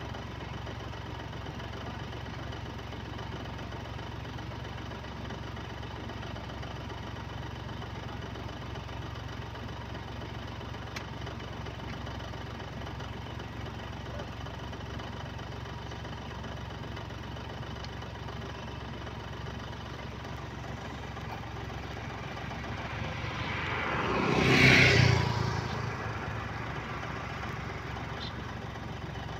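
A vehicle engine idling steadily. Near the end another vehicle passes close by, rising to a peak and fading away within about four seconds.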